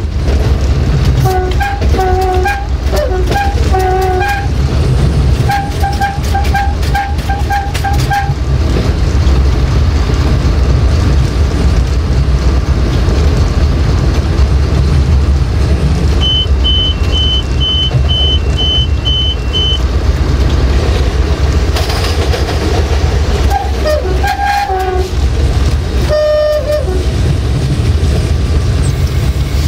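Diesel-electric locomotive's two-tone air horn blowing from inside the running cab: a few blasts, then a quick string of short toots, and more blasts near the end, over the steady drone of the diesel engine and rail-joint clicks. About halfway through, a high electronic beeping repeats about twice a second for a few seconds.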